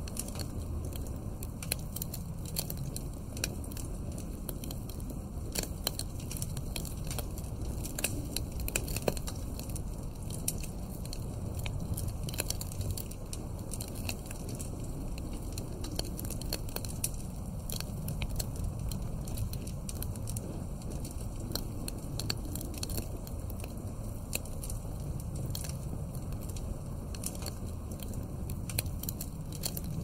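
Wood fire crackling in a fireplace, with frequent sharp pops and snaps at irregular moments over a steady low rumble of wind.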